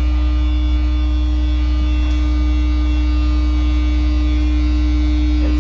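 Steady, loud buzzing drone of a sewer pump-out vacuum truck's pump running: a deep low hum with a steady higher tone above it, unchanging throughout.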